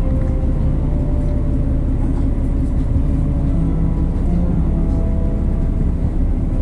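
Diesel engine of a KiHa 48 railcar idling with the train standing at the platform: a steady low rumble, heard from inside the passenger car.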